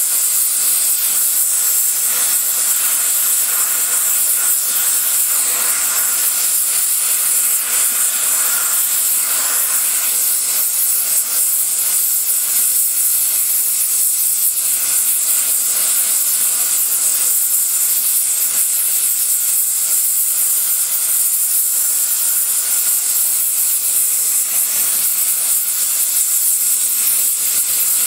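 Spray welding torch flame hissing steadily as it heats a cast iron cylinder head to a red glow.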